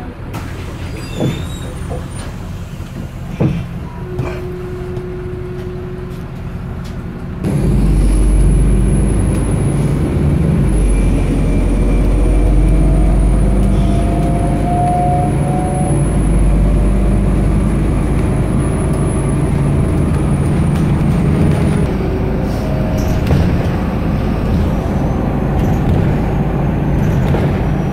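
City bus running, heard from inside the passenger cabin. A few knocks over steady engine and road noise, then about seven seconds in the noise jumps to a loud low rumble as the bus moves off, with a steady high whine over it that stops about three-quarters of the way through.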